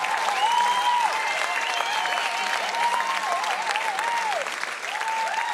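Concert audience applauding and cheering, with many voices carrying over the steady clapping.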